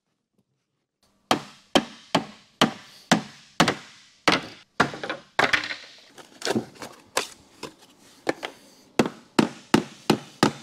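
Claw hammer striking the bottom of a pre-hung door's frame: a long run of sharp blows, about two a second, starting about a second in, with a few lighter taps in the middle.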